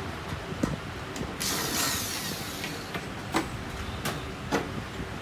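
Parts of a mini cut-off saw being taken apart by hand: light clicks and knocks of plastic and metal pieces, with a rasping slide of about a second and a half, about a second and a half in, as parts are worked loose.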